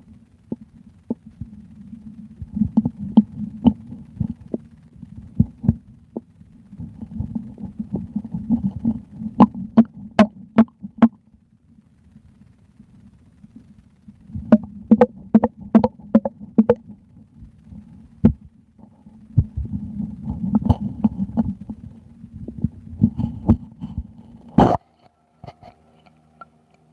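A human stomach gurgling and sloshing close to the microphone. It comes in waves of low rumbling, broken by irregular runs of sharp, clicky gurgles. One loud sharp knock comes near the end, and after it the sound drops away almost to quiet.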